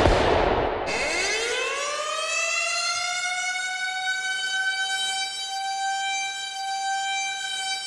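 Hockey goal siren winding up from a low pitch over about two seconds, then holding one steady wail, signalling a goal. In the first second, a loud burst of noise fades out as the siren starts.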